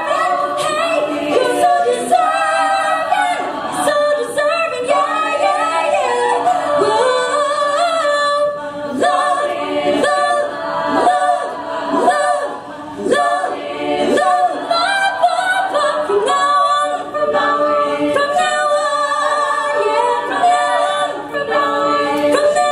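Women's a cappella group singing: lead voices over sustained backing harmonies, with no instruments.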